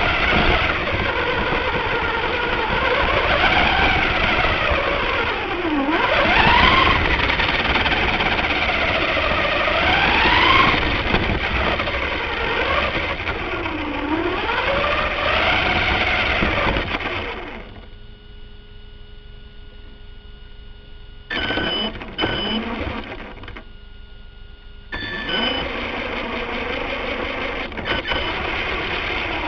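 Radio-controlled car's motor and gears whining, heard from a camera mounted on the car, the pitch rising and falling as the throttle changes. About two-thirds through the car stops, leaving a faint steady whine; it gives a couple of short bursts, then runs again near the end.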